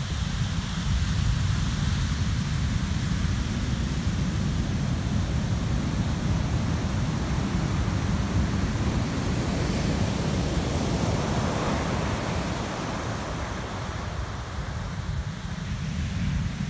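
Heavy surf breaking and washing up a sandy beach in a continuous rushing roar, with a low rumble of wind buffeting the microphone.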